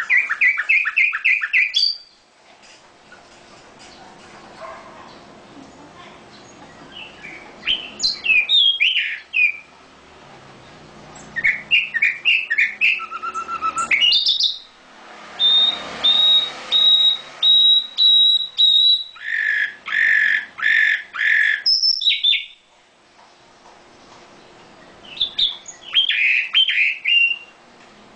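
A songbird singing in loud bouts of quick chirps and trills, with a run of rapidly repeated high notes in the middle and short pauses between phrases.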